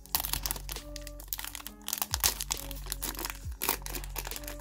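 Plastic wrapper of a trading-card pack crinkling and tearing as it is ripped open by hand, in many sharp crackles, over background music.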